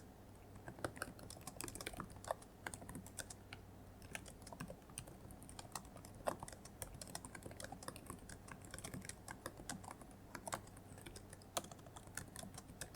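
Typing on a computer keyboard: a steady, uneven run of quiet key clicks, as a typing sound effect.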